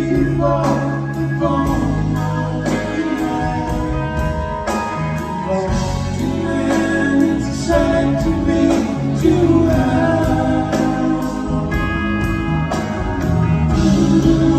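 Live rock band playing through a concert PA, heard from the audience: electric guitars, bass, keyboards and drums, with a voice singing over them.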